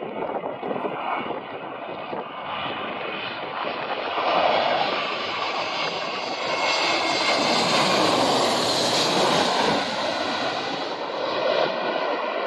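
Twin-engine jet airliner on final approach with its landing gear down, passing low overhead. The jet engine noise swells to its loudest a little past the middle, with a high whine over it, then fades as the plane flies away.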